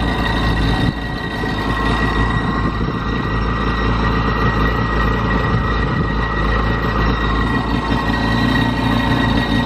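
Jet ski engine running steadily out of the water, just started on the choke; it dips a little in loudness about a second in.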